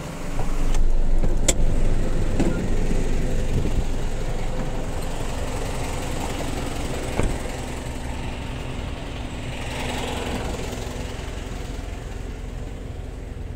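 Tow truck engine running steadily, heard from inside the cab while driving slowly, with a sharp click about a second and a half in.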